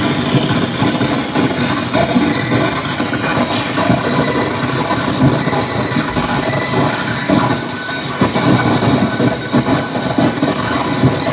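Live electronic noise music: a dense, unbroken wall of harsh noise across the whole range, with no beat.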